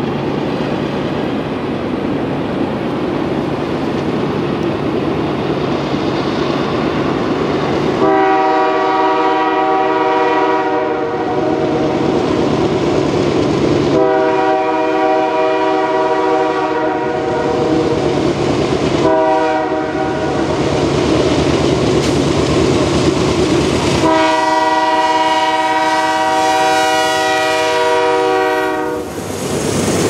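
Nathan K3L air horn on a CN GE C44-9W diesel locomotive sounding the grade-crossing signal, long, long, short, long, over the steady rumble of the approaching train. Each blast is a chord of several steady tones. The last long blast is held about five seconds and cuts off just before the locomotives pass.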